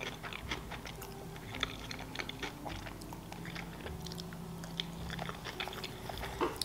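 Close-miked chewing of sushi rolls, with many small wet mouth clicks and crackles.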